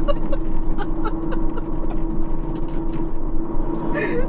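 Road noise inside a moving car's cabin: a steady low rumble with a constant hum.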